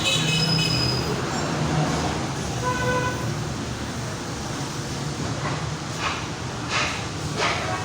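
Steady traffic noise with a low hum, a short horn toot about three seconds in, and several short hisses near the end.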